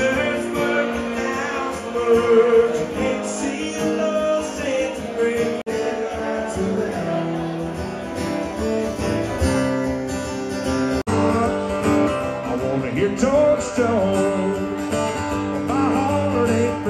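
Live acoustic guitar strummed with a man singing into a microphone. The sound breaks off abruptly twice where the recording cuts.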